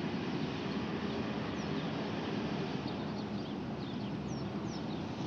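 Steady low background hum of room ambience, with small birds chirping faintly now and then: a few short falling chirps, clearest near the end.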